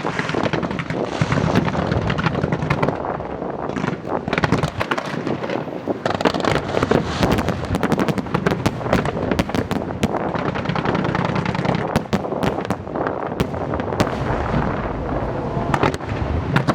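Fireworks bursting and crackling in a rapid, continuous barrage of cracks and pops.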